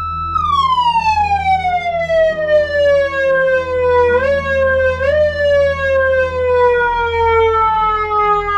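Civil-defense warning siren holding a high steady tone, then slowly winding down in pitch over several seconds. There are two brief small rises in pitch about four and five seconds in.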